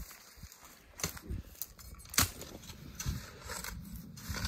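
A few sharp crunches and knocks, irregularly spaced, the loudest a little past two seconds in, with a low rumble building in the last second and a half.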